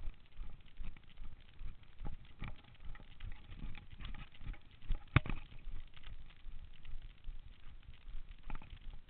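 Running footsteps on a dirt and leaf-litter trail, about three a second, picked up by a camera carried by the runner, with one sharper knock about five seconds in.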